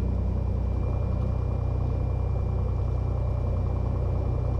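Cessna 182T's six-cylinder Lycoming IO-540 engine running steadily at low power on the ground, an even deep drone, with a faint thin steady high tone above it.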